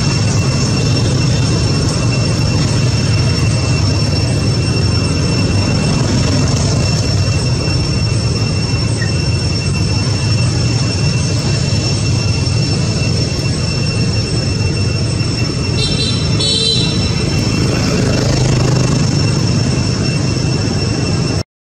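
Steady loud outdoor background noise with a deep rumble and a constant high-pitched whine, broken by a brief burst of high chirps about sixteen seconds in.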